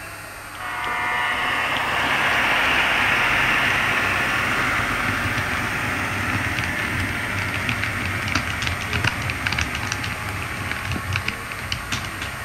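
A pair of HO-scale model diesel locomotives running past on the layout track: a steady whir of motors and wheels that builds about a second in, with a run of sharp clicks as the wheels cross the track in the second half.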